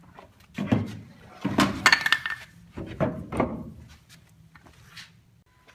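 A few separate knocks and clinks of wood and metal tools being handled while a saw cut is set up, each with a short ring.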